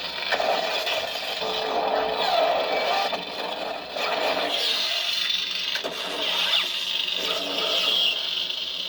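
Lightsaber sound board playing a Kylo Ren-style unstable-blade sound font: a rough, crackling saber hum with swinging whooshes that rise and fall in pitch.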